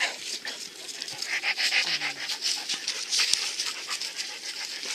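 A dog panting close by in quick breathy puffs, with scattered light clicks.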